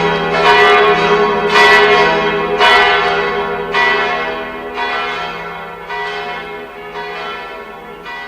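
Church bells ringing, a new strike about once a second over a long ringing tail, slowly fading as the bells wind down.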